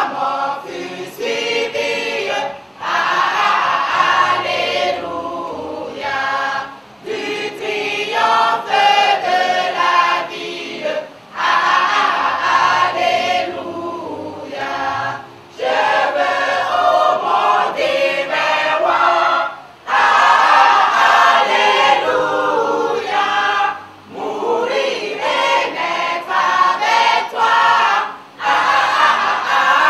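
Mixed church choir singing together, in phrases with short breaths between them roughly every four seconds.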